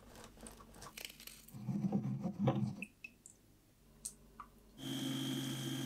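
Lemon half squeezed and twisted on a glass citrus juicer: wet squishing and crunching with light clicks, loudest about two seconds in. Near the end a steady tone holds for about a second and a half.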